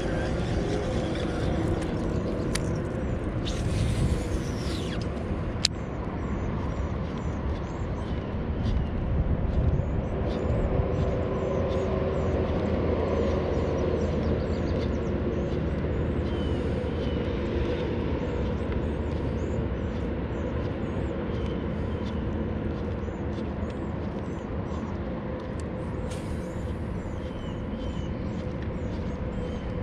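A bass boat's bow-mounted trolling motor humming steadily under a rumble of wind on the microphone, with a couple of sharp clicks and faint high chirps repeating throughout.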